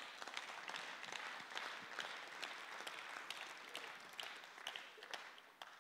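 Audience applauding: many hands clapping faintly, dying away near the end.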